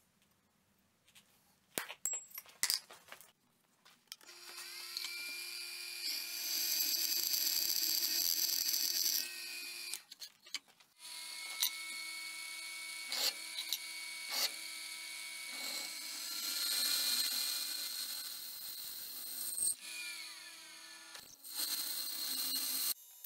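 A few sharp metal taps, then a drill press starts about four seconds in, boring the lanyard hole through the tang of a 5160 steel knife blank with a steady motor hum and a high cutting hiss. The drill stops briefly twice, about ten seconds in and near twenty seconds, and then runs on, with scattered clicks and squeals as the bit cuts.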